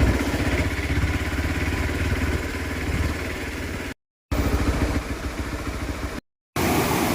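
A vehicle engine running with an even, rapid pulse, heard in short clips broken by two abrupt silent cuts. After the second cut, near the end, a steadier rushing sound takes over.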